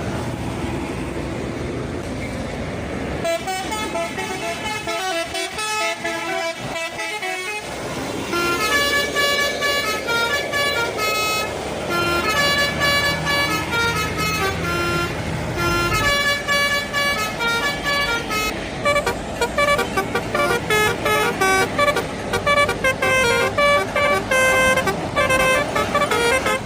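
Indonesian bus 'telolet' horns, multi-tone air horns playing rapid stepping melodies over low road and engine noise. The notes start sparse and become louder and denser about a third of the way in, changing pitch several times a second.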